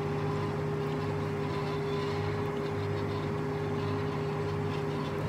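Tractor engine running steadily, heard from inside the cab, with a constant low drone and a steady higher hum over it.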